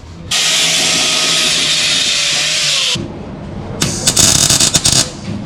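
Power tools at work on a vehicle exhaust: a loud steady whirring hiss for nearly three seconds that cuts off abruptly, then a second or so of sharp rattling bursts.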